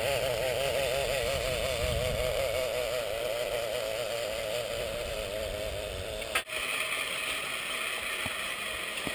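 Zipline trolley pulleys running along the cable: a wavering whir, with wind rushing over the microphone. After a short break about six and a half seconds in, the whir gives way to a steady hiss.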